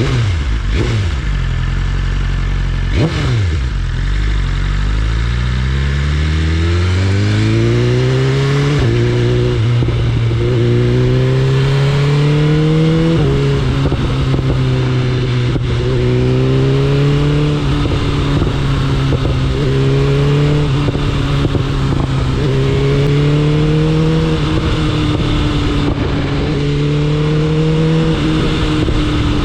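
BMW S1000RR inline-four engine pulling hard with its pitch climbing, dropping suddenly at upshifts about nine and thirteen seconds in, then holding a steady cruise with gentle rises and falls in revs. Wind hiss runs under it, and a couple of quick pitch sweeps come in the first few seconds.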